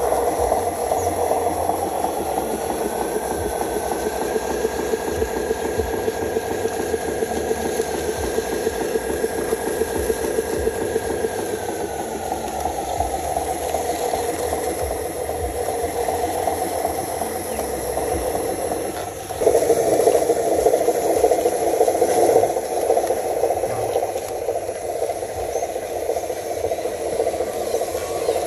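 Radio-controlled model truck running, its small motor and gears making a steady rattling buzz. A whine rises a few seconds in, holds, then falls away. The sound gets louder about two-thirds of the way through.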